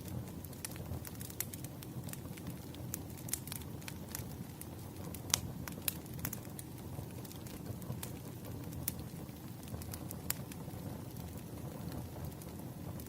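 Wood fire crackling: a steady low rush of burning logs with scattered sharp pops and snaps, the loudest about five seconds in.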